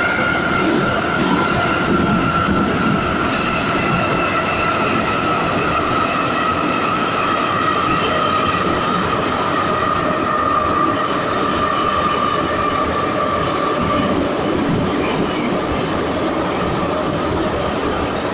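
81-540.7/541.7 metro train running, heard from inside the passenger car: a steady running rumble with a high whine that drifts slightly lower and fades out about fourteen seconds in.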